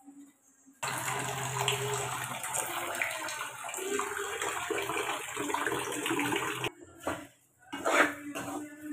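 Water running steadily from a wall-mounted water purifier's tap into a vessel for about six seconds, then cutting off suddenly. A few short clinks of a metal spoon against a steel kadai follow as the semolina is stirred.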